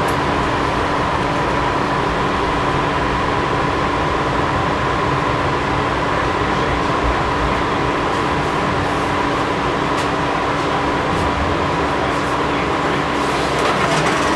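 Light rail train heard from inside the passenger car: a steady rumble of wheels on track with a constant hum, as the train slows into a station.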